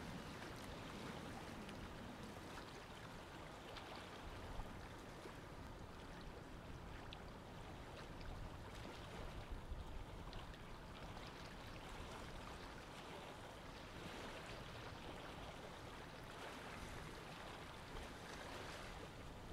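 Faint, steady ambience of gently moving water at the water's edge, with a few soft ticks here and there.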